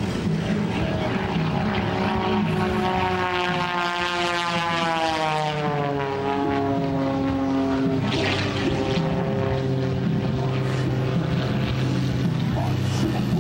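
Pitts S-2S aerobatic biplane's six-cylinder Lycoming engine and propeller running under power. The engine note drops steadily in pitch as the plane passes, from about two to seven seconds in.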